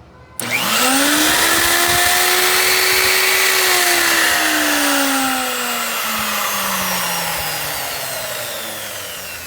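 Harbor Freight table saw's electric motor and blade switching on, quickly spinning up to a steady whine, then switched off about four seconds in and winding down with falling pitch. The saw starts and runs again with its tripped reset switch bypassed and the motor wired through a plain on-off switch.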